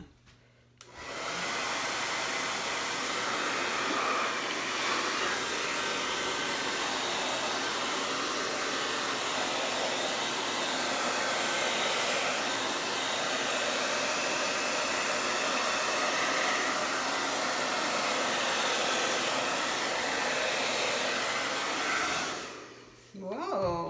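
Hair dryer switched on about a second in and running steadily, blowing thin acrylic paint across a canvas; it is switched off near the end.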